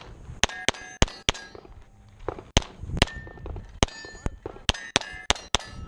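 Pistol shots at steel targets, many followed by the ring of a struck steel plate: about a dozen sharp cracks in quick pairs and runs, with a pause of about a second before the two-second mark.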